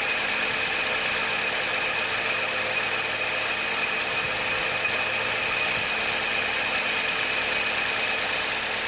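Toyota 1NZ-FE inline-four idling with a steady high-pitched whistle over the engine sound. The whistle is clearly not from the belts and is heard from the right front wheel side; its cause is unidentified.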